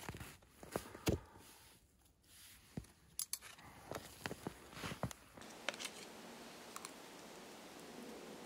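Close handling sounds as a plastic plate and fork are picked up off the snow: a series of sharp clicks and knocks with clothing rustle. About five seconds in these stop and a soft, steady background sound takes over.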